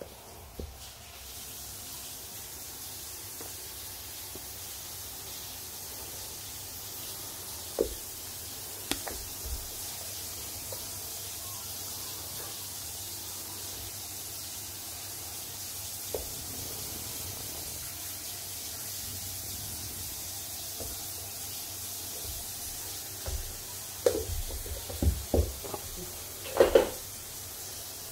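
Steady faint hiss with a few single short taps, then a quick run of louder knocks and slaps in the last few seconds from a baby's hands patting.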